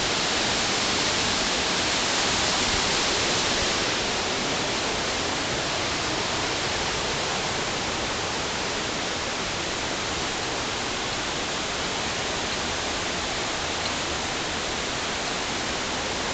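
Rushing water of a fast-flowing waterfall stream, a steady loud hiss that eases slightly after about four seconds.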